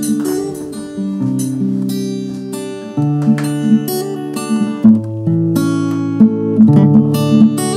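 Acoustic guitar fingerpicked, playing a tune of single plucked notes that ring on over sustained bass notes.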